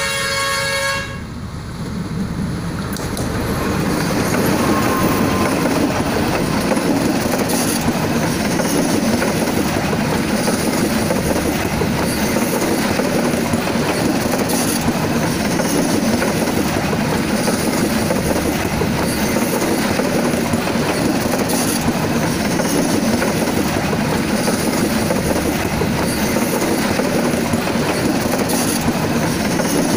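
A diesel locomotive's horn sounds and cuts off about a second in. The passenger train's coaches then roll past at close range: a loud, steady rumble of steel wheels on rail, with a click every few seconds.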